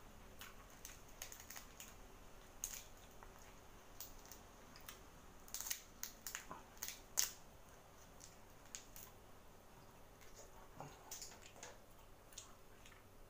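Boiled shrimp shell being peeled by hand, with faint, scattered crackles and snaps of the shell and a run of louder cracks about six to seven seconds in.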